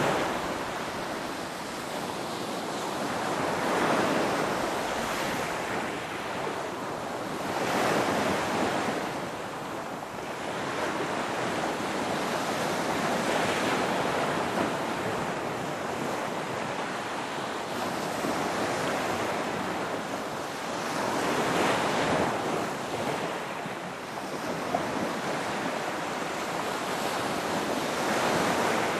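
Ocean surf: waves breaking and washing up, the rush of water swelling and easing every few seconds.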